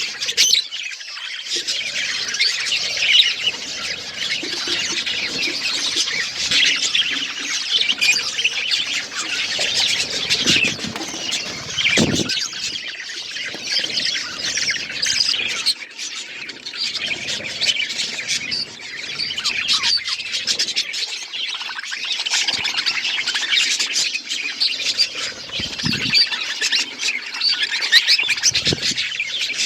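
Several budgerigars chirping and chattering, their high calls overlapping in a continuous stream.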